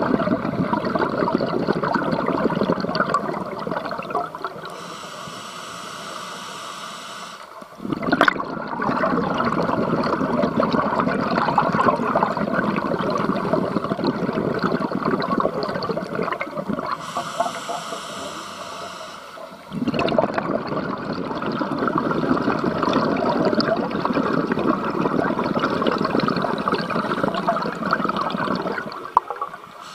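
Scuba breathing heard underwater: long rushes of exhaled bubbles from the regulator, twice giving way to the quieter hiss of an inhale through the regulator, in a slow breathing rhythm.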